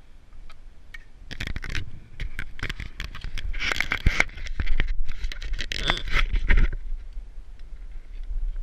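Close scraping, crunching and rubbing for about five seconds, starting about a second in and stopping near the end: a winter climber's jacket, gear and ice axe scraping against the snow, rock and camera as he moves up the gully. A low rumble runs underneath.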